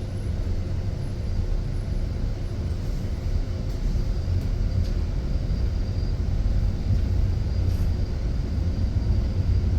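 Cabin noise of a driverless bus getting under way: a steady low rumble of road and running noise that slowly grows a little louder.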